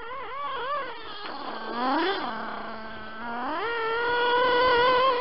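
Reely Rex RC buggy's big-block nitro engine revving: a high whine that blips and wavers for the first second, drops back to idle, blips once around two seconds in, then climbs from about three and a half seconds and holds at high revs.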